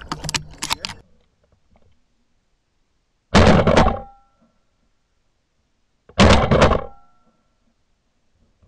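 Shotgun fired twice at doves, two sharp shots about three seconds apart, each dying away quickly. A few small clicks come just before the first shot.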